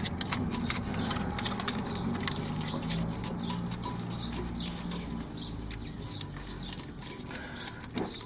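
Sticky-backed exhaust repair aluminium foil crinkling and crackling in quick irregular rustles as it is wrapped and pressed around the exhaust pipe joint, over a low steady rumble.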